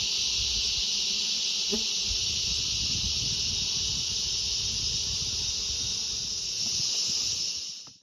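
Steady, high-pitched chorus of calling insects, with a low rumble underneath. The sound fades out at the very end.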